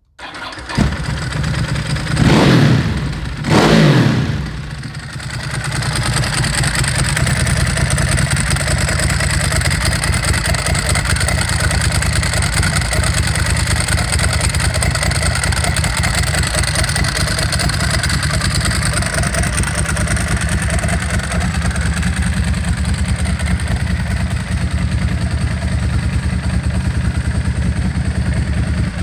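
2004 Ducati 999's L-twin engine starting, revved twice with quick throttle blips, then settling into a steady idle.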